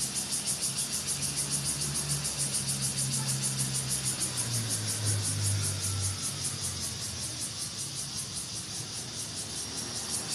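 A low engine drone that swells and drops slightly in pitch around the middle, under a fast, even high-pitched pulsing of about five pulses a second.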